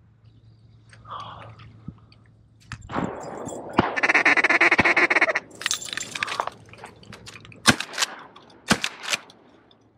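Duck quacking in a loud, rapid chattering run lasting about two seconds. A few sharp clicks or knocks follow later.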